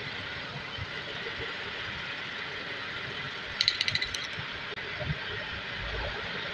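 Metal lathe running steadily with a green PPR plastic fitting spinning in its chuck. A short burst of rattling clicks comes about three and a half seconds in.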